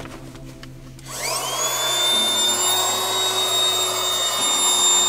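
12-volt electric air mattress pump, plugged into the car's cigarette lighter, spinning up with a quickly rising whine about a second in and then running steadily as it inflates the air mattress.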